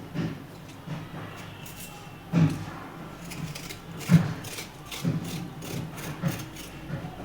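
Raw turmeric root being scraped to take off its skin: irregular scraping and rubbing strokes, a few of them louder.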